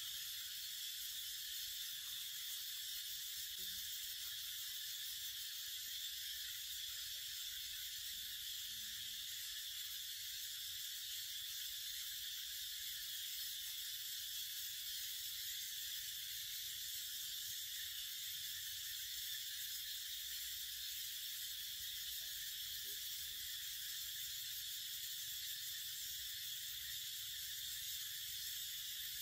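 A steady, high-pitched hiss that does not change or break.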